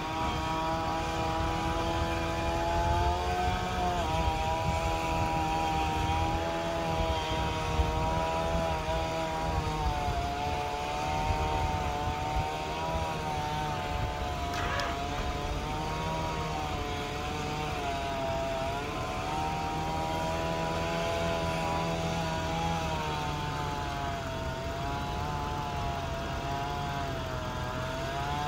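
Chainsaw running continuously, its pitch repeatedly sagging and recovering as it works through the cut. There is a brief sharp click about halfway through.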